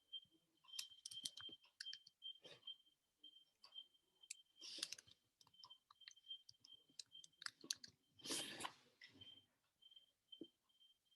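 Faint clicking and typing on a computer keyboard and mouse, irregular taps, with two brief soft rushes of noise about five and eight and a half seconds in.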